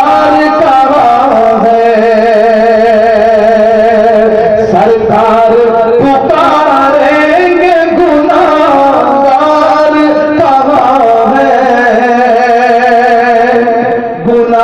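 A naat being sung: long, wavering melismatic notes held with short breaks between phrases, with no distinct words.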